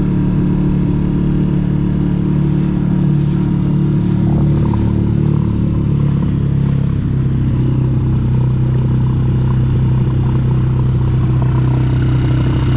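Small outboard motor running steadily, driving an inflatable dinghy across the water, over a hiss of water and wind; its note shifts slightly about four seconds in.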